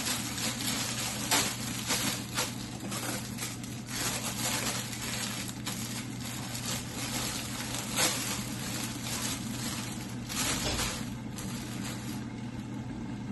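Stir-fried vegetables sizzling and crackling in a covered pan, a steady crackle with many small pops, over a steady low hum.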